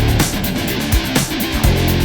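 Rock music with electric guitar over bass and a steady drum beat.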